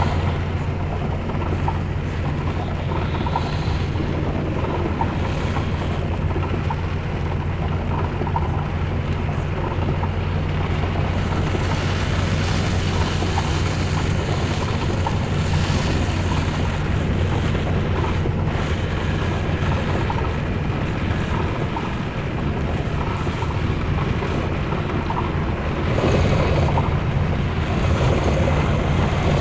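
A vehicle driving in heavy rain: a steady low engine and road drone under an even hiss of rain and wet tyres, growing a little louder near the end.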